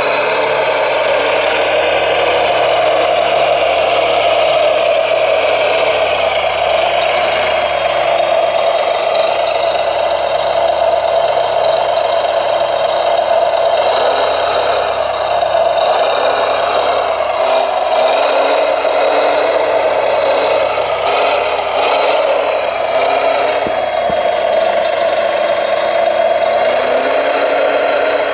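Radio-controlled hydraulic wheel loader running with a boulder on its forks, its motor and hydraulic pump giving a steady whine.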